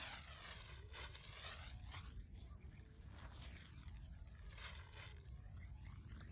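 Thin plastic bag crinkling in a few short bursts as a hand rummages inside it, over a steady low rumble.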